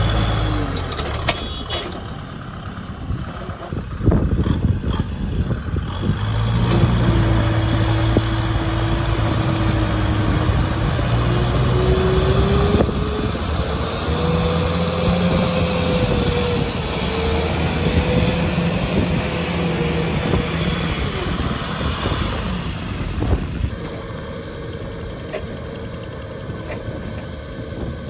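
Kubota M6040SU tractor diesel engines running steadily under load as the tractors work through mud. A whine rises in pitch about ten seconds in, then holds.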